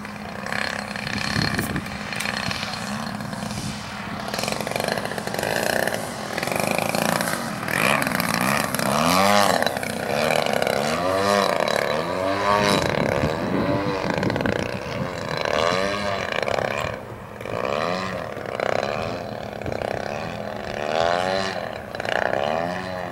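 Radio-controlled aerobatic model airplane's engine and propeller running in flight, its pitch rising and falling over and over as the plane manoeuvres and passes by.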